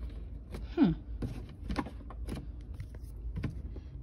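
Irregular light clicks and knocks of hard plastic being handled in the spin basket of a portable twin-tub washer, with one short falling tone about a second in.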